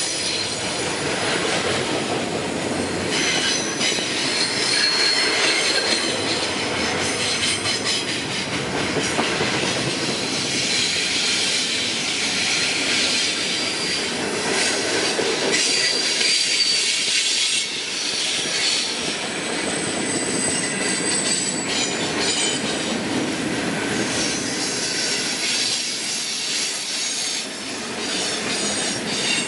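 Freight cars (double-stack container cars, tank cars and gondolas) rolling steadily past close by: steel wheels rumbling on the rail with clicks at the joints. High-pitched wheel squeal comes and goes, about 3 to 6 seconds in, around 15 seconds, and again around 20 seconds.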